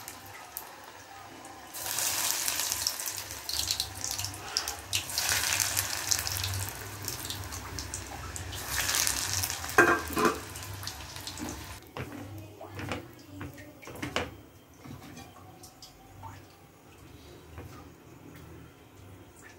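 Breadcrumb-coated fish fingers deep-frying in hot oil: loud sizzling and bubbling that starts about two seconds in as the pieces go into the oil. The sizzling falls away after about twelve seconds, followed by a few light knocks.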